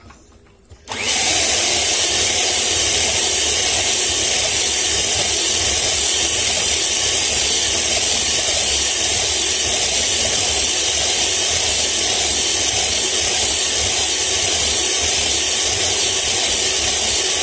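Electric hand mixer switched on about a second in and running steadily at a constant speed, its beaters turning in batter in a glass bowl. A loud, even motor noise, which its owner finds noisy enough to compare to a tractor.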